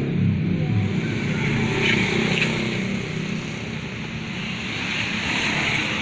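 Steady rumble of passing road traffic.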